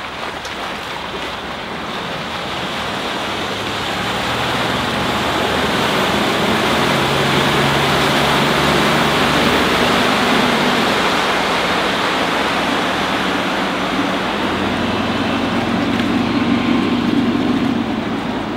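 Volvo Penta D3 diesel sterndrive of a Flipper 705 HT running at speed with a low drone, under a steady rush of wake water and wind on the microphone. The sound builds over the first few seconds and the engine drone swells again near the end as the boat turns away.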